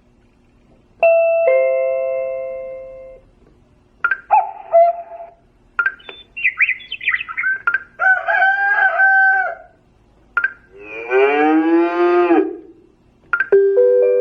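Syscall SR A-series waiter-call receiver's speaker playing its ringtone choices one after another: a ding-dong doorbell-style chime, short chirping tones, a repeated two-note signal, a long sliding animal-like call, and another chime. Each lasts a second or two, with short gaps between.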